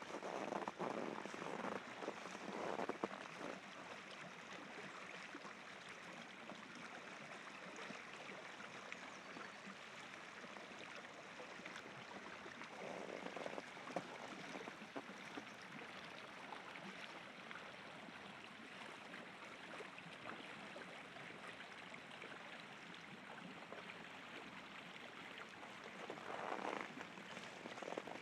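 Steady rush of the Nukari rapids' river water running beneath ice. Footsteps crunch in frozen snow in the first few seconds, briefly around the middle and again near the end.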